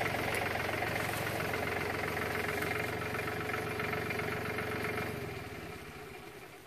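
An engine idling steadily, then shut off about five seconds in, slowing and dying away.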